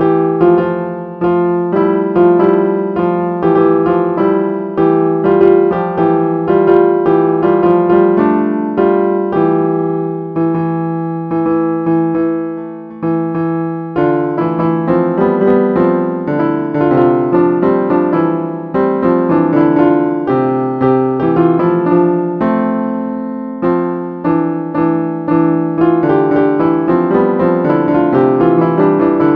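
Sampled piano sound from a phone piano app, playing a busy run of melody notes over lower notes. The notes die away briefly about thirteen seconds in before the playing picks up again.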